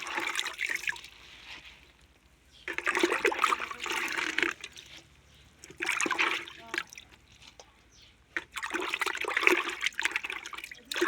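Water splashing and pouring in four separate bursts, each a second or two long with short pauses between them.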